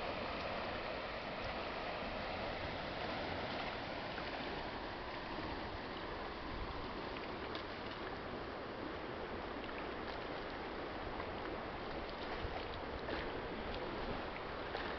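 Steady rush of canal water pouring through sluice-gate arches and flowing down a wide irrigation canal.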